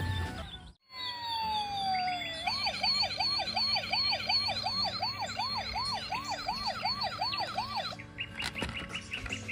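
Electronic siren: a tone slides down, then gives way to a fast yelp of repeated rising sweeps, about three to four a second, which stops about eight seconds in. Short high chirps follow near the end.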